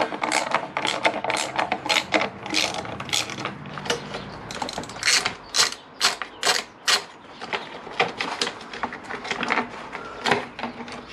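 Socket ratchet clicking in quick, uneven runs as its handle swings back and forth, undoing bolts under a motorcycle's rear undertray.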